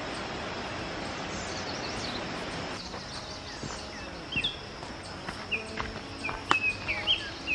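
Small birds chirping in short, quick calls, getting busier near the end, with a few light clicks. For the first three seconds a steady rushing noise covers them, then cuts off abruptly.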